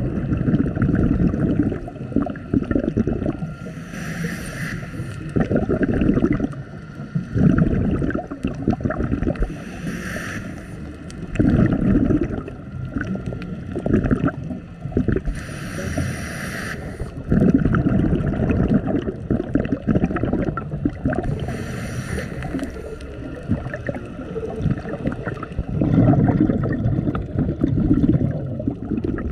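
Scuba diver breathing through a regulator underwater: a hiss of inhaled air about every five to six seconds, alternating with low bubbling bursts of exhaled air.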